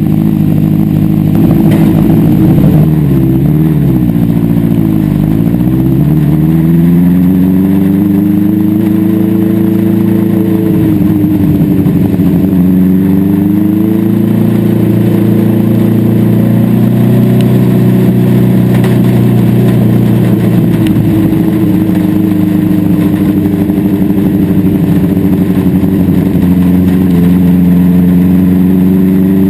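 On-board sound of a dwarf race car's motorcycle engine running hard at racing speed on a dirt oval. Its pitch dips and climbs back twice, a few seconds in and again around the middle, as the car lifts off for the turns and drives back onto the throttle, holding high and steady in between.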